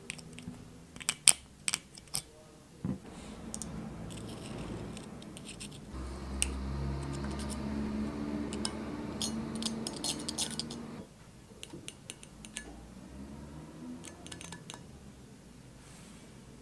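Light metallic clicks and scrapes as a thin metal pick taps along a bronze lizard casting and the piece is handled. A low steady hum sits under the clicks from about three to eleven seconds in.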